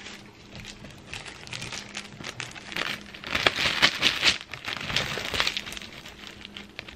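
Plastic zip bag full of ice cubes crinkling as it is handled and shaken, with irregular rustling that is loudest in the middle.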